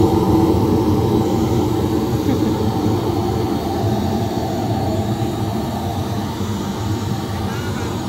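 Steady low engine rumble with a faint murmur of voices behind it.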